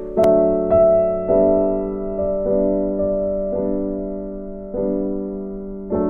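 Soft background piano music: slow sustained chords, a new note or chord about every second, each ringing and slowly fading.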